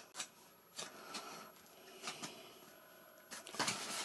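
Faint handling noise of foam model-aircraft parts being pressed together by hand: a few light taps and rubs, with a louder click about three and a half seconds in.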